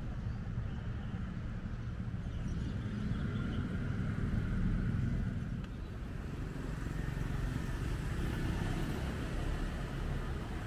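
Street traffic ambience: a steady low rumble of vehicles passing, swelling a few seconds in and easing briefly near the middle before building again.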